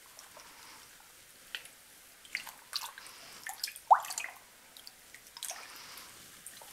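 Dye-bath water dripping and lightly sloshing in a plastic tub as a shirt is held under and stirred with a spoon. Scattered small drips and splashes, with one louder, short rising plop about four seconds in.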